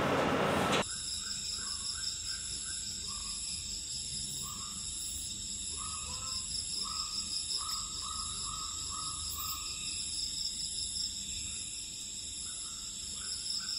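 Tropical forest ambience: a steady, high-pitched insect chorus, with short animal calls repeated in runs of about two or three a second. It starts abruptly about a second in.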